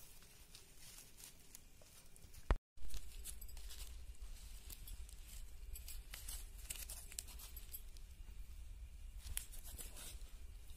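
Faint rustling and crinkling of a dry plant-fibre string and flower heads as hands knot the fibre to join a garland. There is a sharp click and a moment of silence about two and a half seconds in.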